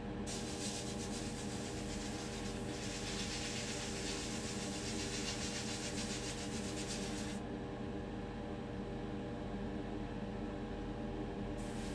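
Airbrush spraying clear coat: a hiss of air and paint over the steady hum of its small compressor. The spray hiss stops about seven seconds in while the compressor keeps running, then starts again near the end.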